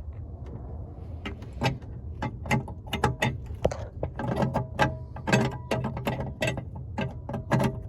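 Irregular plastic-and-metal clicks and rattles from an LED headlight bulb being handled and worked into its headlight housing, over a steady low hum.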